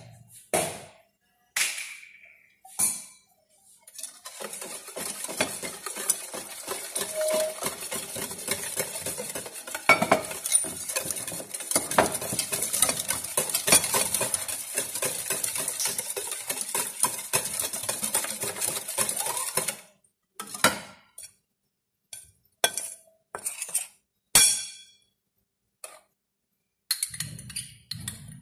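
A utensil stirring and beating in a mixing bowl: a few clinks, then a steady run of rapid clinking and scraping against the bowl for about sixteen seconds, stopping abruptly and giving way to a handful of separate knocks and clinks.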